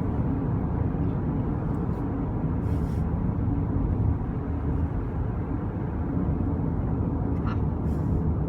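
Steady low rumble of vehicle running noise.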